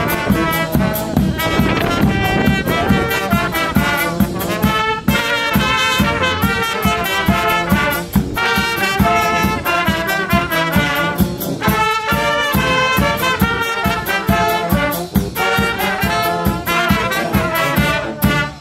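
Brass band of trumpets, saxophones, tenor horns, tuba and bass drum playing a march-style tune over a steady drum beat; the music stops near the end.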